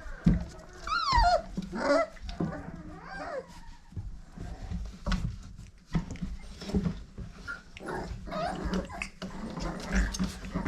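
Five-week-old pit bull puppies whimpering and yipping in short, high cries that drop in pitch, with scattered knocks and scuffling as they crowd about.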